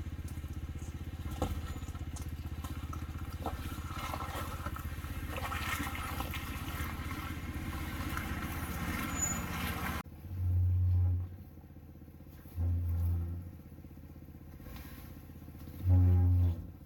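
An off-road vehicle's engine running steadily over broad noise. After an abrupt change it comes in three short, louder surges of about a second each, as if throttled up to clamber over a rock ledge.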